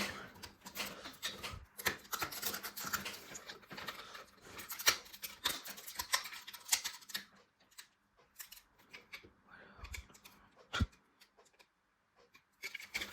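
Plastic Lego bricks clicking and rattling as pieces are handled and pushed together. There is a busy run of small clicks and rustling for about the first seven seconds, then only scattered clicks and a couple of soft knocks.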